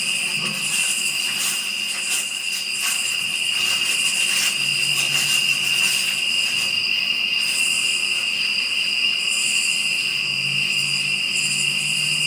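Steady chorus of night insects such as crickets or katydids: a continuous high trill with louder pulsing bouts higher in pitch. A faint low hum comes and goes underneath.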